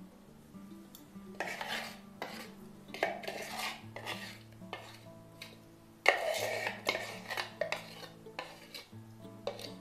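Metal spoon scraping thick tahini-halva batter out of a clear plastic bowl: a run of short, uneven scrapes and clinks, the loudest about six seconds in.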